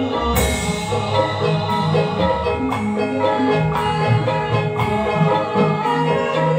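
Javanese gamelan playing an instrumental passage: bronze mallet-struck metallophones ring out a melody in notes about a second apart over drum beats, with a bright metallic crash about half a second in.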